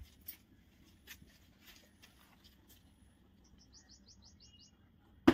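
Light scattered taps and rustles as a kitten bats at a string of dangling dried fruits over a log. About two-thirds through comes a quick run of about eight short high chirps, and near the end a single sharp knock.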